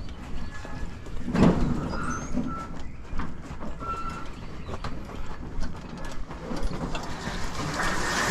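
Scattered knocks and rattles of a heavy metal item being handled and shifted, with one louder thump about a second and a half in and a few short, high squeaks.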